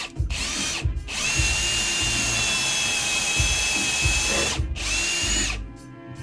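Cordless Ryobi drill boring a pilot hole up into the wooden underside of a workbench for a vise's mounting screws. It runs in a short burst, then a steady whine of about three and a half seconds, then another short burst, with background music under it.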